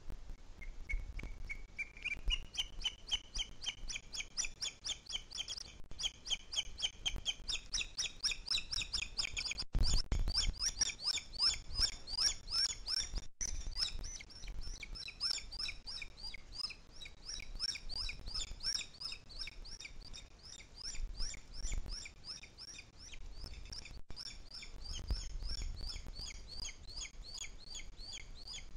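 Booted eagle calling at the nest: a fast, unbroken series of high, chirping notes that climbs in pitch over the first few seconds and then keeps on.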